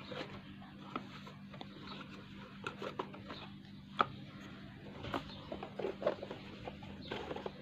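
Handling noise from a cardboard phone box and its insert being moved and tapped: scattered light clicks, taps and rustles, with one sharper click about four seconds in, over a steady low hum.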